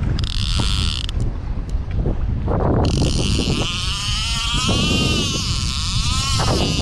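Fishing reel whirring in two spells, a short one at the start and a longer one from about three seconds in, its pitch rising and falling with the line's speed. Steady wind buffets the microphone underneath.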